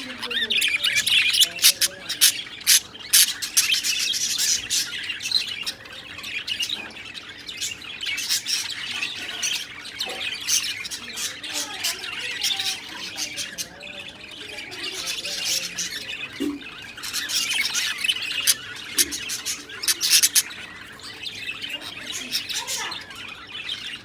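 Budgerigars chattering without a break, a busy mix of quick high chirps, clicks and harsh squawks, busier in a few stretches.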